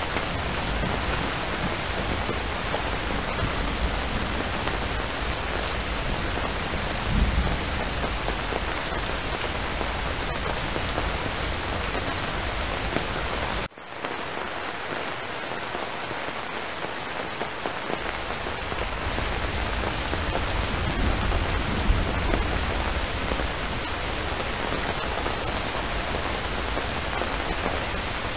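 Steady rainfall, a dense even hiss of drops. It cuts out for a split second about halfway through, then carries on.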